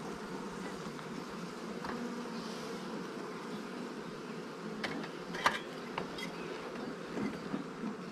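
Honeybees buzzing over an open hive in a steady, dense hum. A few sharp clicks come about five to six seconds in.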